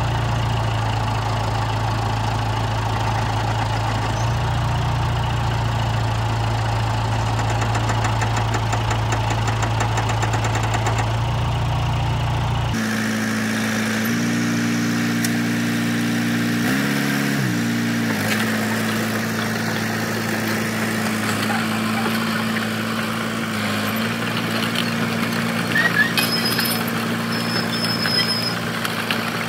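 John Deere 455E crawler loader's diesel engine running steadily with a low hum. About halfway through the sound changes abruptly to a higher engine note, which rises briefly and drops back a few seconds later.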